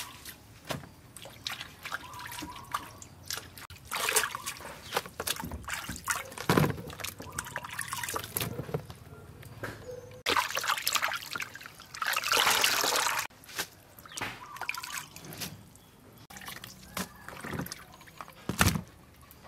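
Water splashing and dripping as lettuce leaves are washed by hand in a basin of water and lifted out, with irregular clicks and a couple of dull thumps. About ten seconds in, a steadier rush of water lasts for about three seconds.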